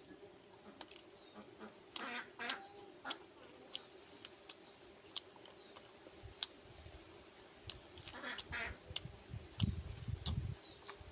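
Close-up eating sounds of a man eating rice and fried food by hand: steady chewing with many wet mouth clicks, two louder rasping bursts about two and eight seconds in, and a few low thumps near the end.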